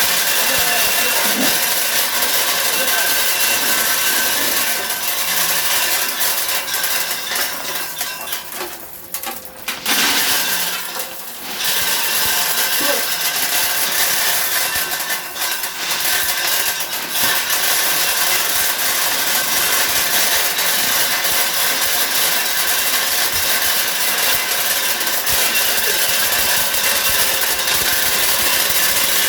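Candlenut-cracking machine running with a dense, steady rattle of many small hard clicks. The noise thins out briefly about nine to eleven seconds in, then comes back at full strength.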